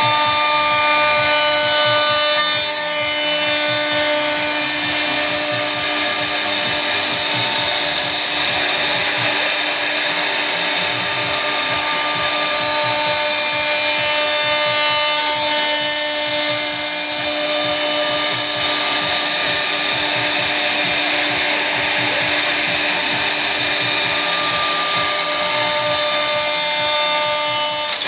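Home-built CNC router's spindle running with a steady high whine while carving grooves into MDF. Steady humming tones from its stepper motors change pitch and come and go as the axes move.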